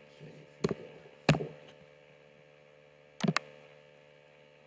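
Sharp clicks of a computer keyboard and mouse: one click under a second in, a louder one just after, and a quick double click about three seconds in, over a low steady electrical hum.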